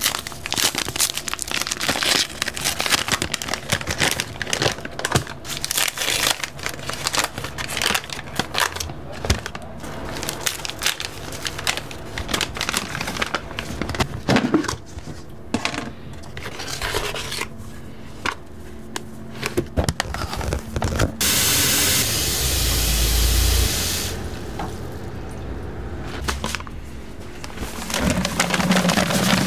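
Paper and plastic food packaging crinkling and tearing, with containers scraping and clicking as they are handled. About two-thirds of the way through comes a few seconds of steady rushing noise with a low rumble.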